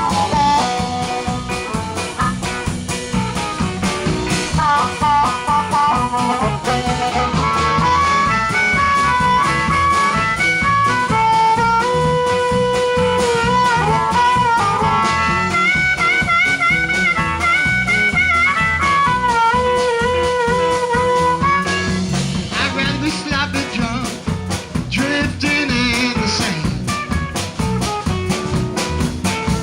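Live blues band playing an instrumental passage: a single lead line of held notes, some trilled, rides over guitar, bass and drums, and the texture grows busier about two-thirds of the way through.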